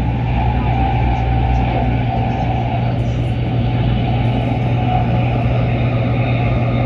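Steady interior running noise of a Taiwan High Speed Rail train travelling at speed: a constant low hum under an even rushing noise in the cabin.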